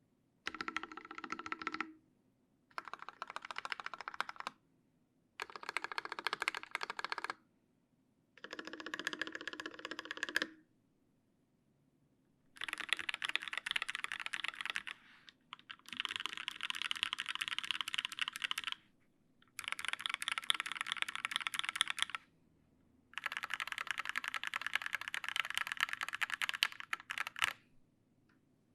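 Typing on a TGR Alice mechanical keyboard with a brass plate, lubed Linjar linear switches and GMK keycaps: eight separate runs of dense keystroke clicks, each stopping abruptly. The last four runs are longer and brighter than the first four.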